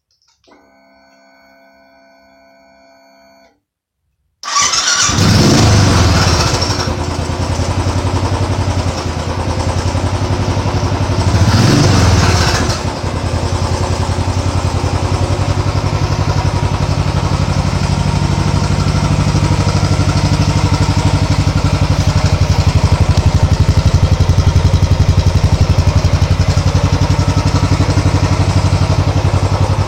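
A faint steady whine for about three seconds, then an engine starts about four and a half seconds in, revs up briefly, revs once more a few seconds later and settles into a steady idle.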